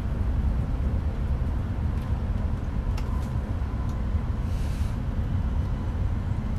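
Steady low rumble of an E5 series Shinkansen running, heard from inside the passenger cabin, with a faint click about three seconds in and a brief soft hiss a little later.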